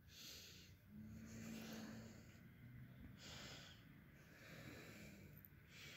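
Faint purring of a tabby mother cat nursing her kittens, rising and falling with each breath in and out.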